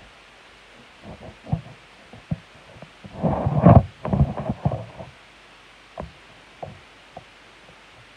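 Soft knocks and bumps from handling the filming phone against a plastic tub, with a louder scuffling, rubbing cluster about three to five seconds in and a few single knocks after.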